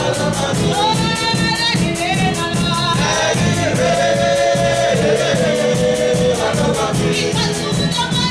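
Gospel worship music: a choir and lead voices singing over a steady beat.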